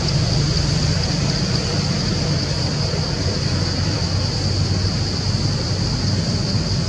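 Steady forest background: a constant low rumble under a continuous high-pitched insect drone.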